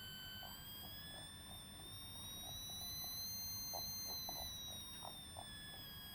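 Stepper motor driven by a microstep driver, whining with a steady high-pitched tone that rises slightly and falls back as the step frequency changes, with faint irregular ticks.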